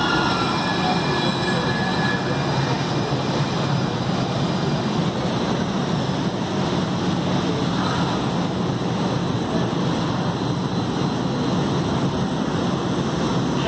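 MUNI light-rail train slowing to a stop at an underground platform. A whine falls in pitch over the first couple of seconds as it decelerates, then the standing train gives a steady hum and rumble.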